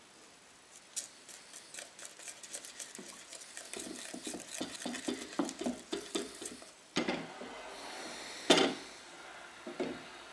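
Wooden stick stirring white powder into warm rabbit-skin glue in a terracotta bowl, making a rapid run of small clicks and scrapes against the bowl's sides while the ground for a wooden panel is mixed. A single sharp knock sounds about eight and a half seconds in.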